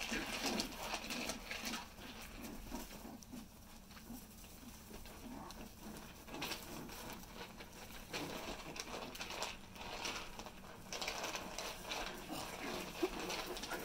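Four-week-old corgi puppies moving about their pen: paws pattering and scuffing on puppy pads and in pellet litter, with a few small puppy grunts.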